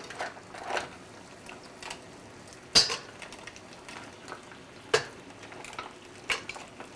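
Mussel shells clicking and clinking in a pan as the opened mussels are picked out one by one so they don't overcook, over a faint sizzle from the pan. Three sharper clicks come about three, five and six seconds in.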